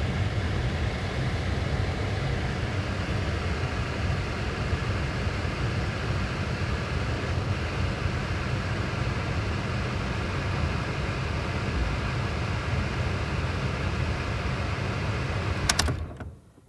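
Car air conditioning running with a steady hum and rush of air. Near the end a few sharp clicks, and the sound dies away quickly as the AC is shut off.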